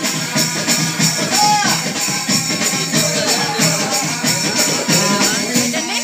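Hand-held frame drums beaten together in a fast, steady rhythm of about three strokes a second, with jingling percussion and voices over the drumming.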